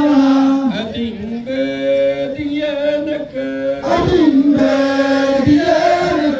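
A group of voices chanting in unison, as in a Nyishi circle dance song: long held notes that slide to a new pitch between phrases.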